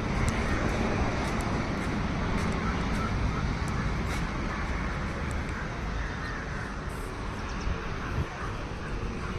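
Steady road traffic rumble, with faint clicks scattered through it.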